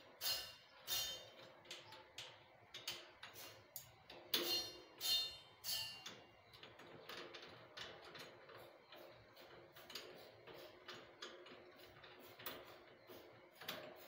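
Metal clinks and ticks from a satellite dish's mounting clamp on its steel pole as the dish is handled and tightened. Sharp, ringing clinks come about every half to three-quarters of a second, loudest around four to six seconds in, then give way to fainter ticking.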